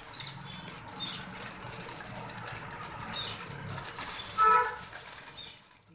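Aluminium foil crinkling and rustling as it is folded and rolled up by hand. About four and a half seconds in, a brief pitched sound stands out as the loudest moment.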